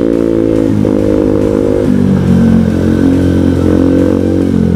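Single-cylinder four-stroke engine of a 50cc scooter with an aftermarket Leovince exhaust running at low speed, its note stepping down and back up a few times as the throttle is eased and opened.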